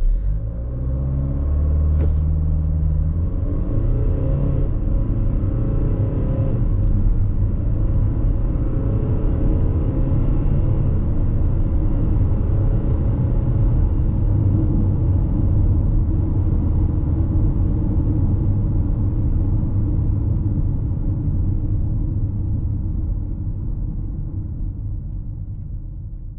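The 2020 Kia Sorento's 2.2-litre turbo-diesel four-cylinder, heard from inside the cabin, accelerating hard from a standstill. Its pitch climbs and drops back through several automatic gear changes in the first few seconds, then it settles into a steady drone with road noise at highway speed and fades out near the end.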